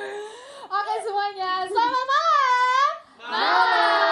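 Young women's voices calling out in a sing-song way, the pitch rising and falling. A short pause comes about three seconds in, followed by a louder call held on a steady pitch.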